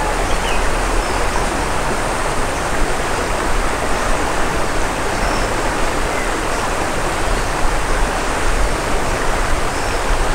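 River water rushing steadily over a rocky bed, an even unbroken hiss.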